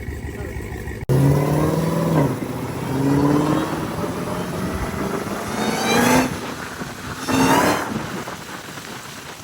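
Hellcat-powered Chrysler 300's V8 accelerating hard. About a second in it suddenly gets loud, and its pitch climbs and drops back several times as it shifts up through the gears.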